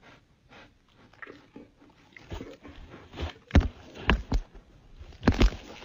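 A dog sniffing and nosing right against the microphone, a run of irregular snuffs and thumps that grow louder, the loudest a little past halfway and again near the end.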